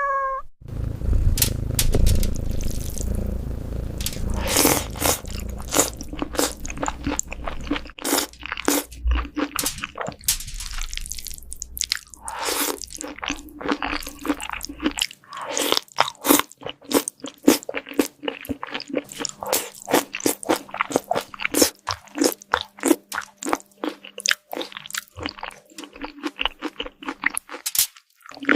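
A cat chewing and crunching food close to the microphone: rapid, irregular crunches throughout, with a low rumble under them that stops about halfway through.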